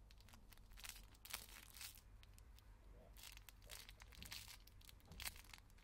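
Faint, irregular crinkling of a plastic wrapper as hands squeeze and turn a cupcake squishy, in short clusters of rustles.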